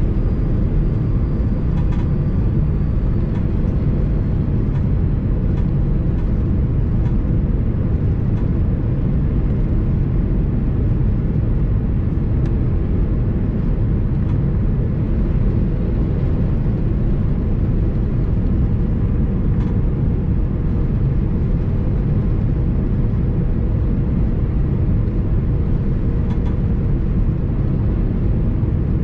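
Steady low rumble of jet engine and airflow noise heard inside the cabin of an Airbus A330-200, with a few faint ticks.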